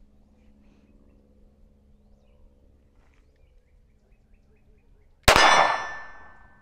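A single shot from a SIG P320 Spectre Comp 9mm pistol, followed by a bright metallic ring that dies away over about a second.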